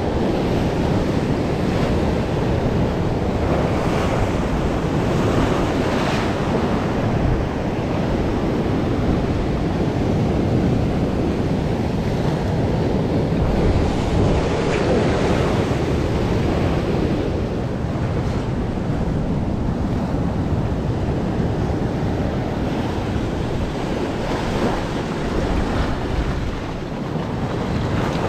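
Sea surf breaking and washing over rocks, a continuous rushing wash that surges louder a few times as waves come in, with wind buffeting the microphone.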